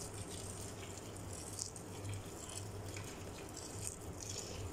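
Water poured from a kettle into an aluminium stockpot of chicken, a thin stream splashing onto the meat and into the pot with an uneven hiss.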